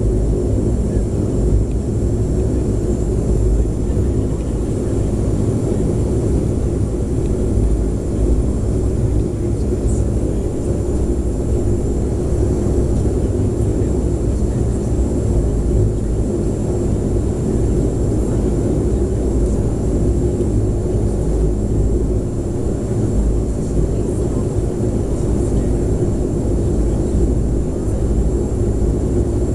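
Fixed-wing aircraft engines droning steadily: a dense low rumble with a thin, constant high whine above it, unchanging throughout.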